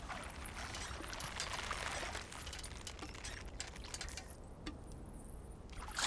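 Water pouring and trickling at a stone well as a pot is drawn up by rope and pulley, with scattered small clicks and creaks. The water sound thins out for about a second and a half near the end.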